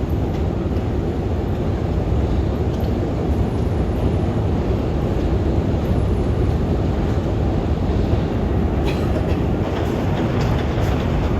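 Metro train running between stations, heard from inside the car: a steady low rumble of wheels on the track, with a few sharp clicks near the end.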